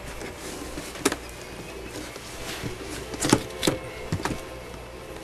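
Cardboard toy box being opened by hand: scattered sharp clicks and scrapes of the flap and packaging, one about a second in and a cluster around three to four seconds in.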